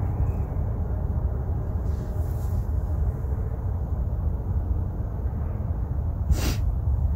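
Steady low outdoor rumble with no speech, and a brief hissing rustle about six and a half seconds in.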